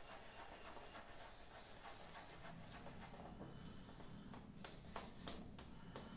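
Faint scratchy rubbing of a boar-bristle shaving brush (Omega 10065) working lather over stubble on the face, in quick strokes that become distinct about halfway through, roughly three a second.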